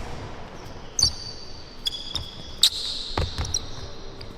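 Basketball bouncing on a court floor: a few separate thuds, with short high sneaker squeaks in between.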